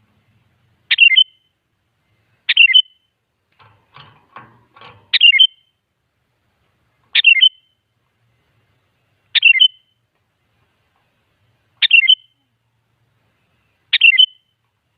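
Sooty-headed bulbul (kutilang) calling: seven short, sharp chirps, each a quick falling note, repeated about every two seconds.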